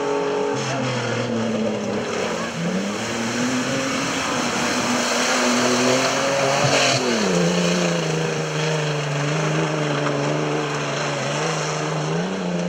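Modified off-road race pickup's engine working hard through mud, its pitch climbing and then dropping sharply at about two and a half and seven seconds in, over a steady hiss of tyres and spraying mud.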